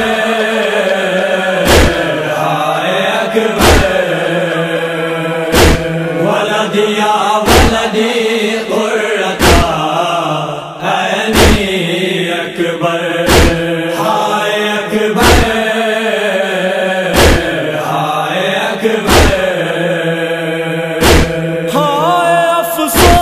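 Noha lament: a chanted line of voices held and sliding in pitch, kept in time by a heavy thump about every two seconds.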